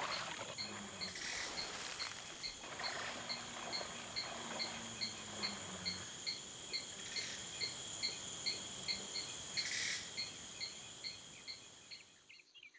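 Forest insect chorus: a steady high-pitched drone with a regular chirp repeating about three times a second, fading out near the end.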